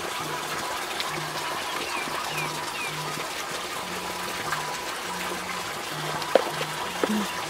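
A steady rush of running water under quiet background music, with a simple low melody stepping along in short held notes. A couple of light clicks come near the end.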